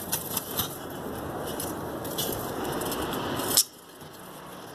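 Rustling handling noise with scattered light clicks and taps, ending in a sharp knock about three and a half seconds in, after which it is much quieter.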